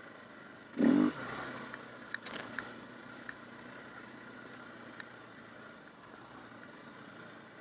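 KTM 500 EXC dirt bike's single-cylinder four-stroke engine running, with a brief loud burst of throttle about a second in. A few sharp clicks and rattles follow about two seconds in.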